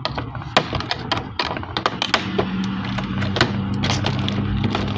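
Small plastic toy accessories and their packaging being handled and pried loose: a run of irregular clicks and taps. A steady low hum joins about two seconds in.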